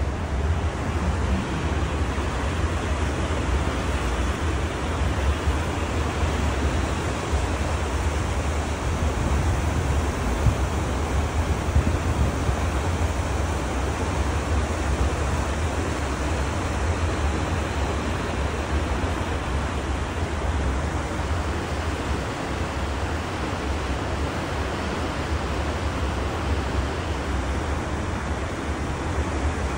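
Steady rushing of a cruise ferry's churning wake water, with a deep, steady rumble underneath.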